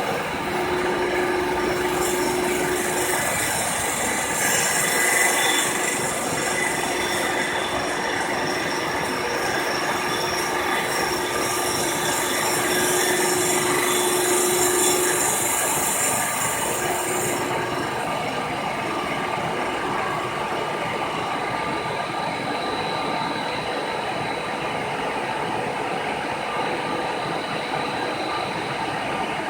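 Milling machine running with a fly cutter taking a cut across the face of an intake manifold: a steady metallic grinding and whirring. A high hiss over it cuts off abruptly about two-thirds of the way through.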